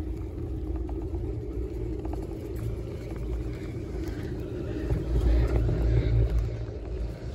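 Heron-Poma chairlift running, heard from the chair: a steady low rumble and hum that swells about five seconds in.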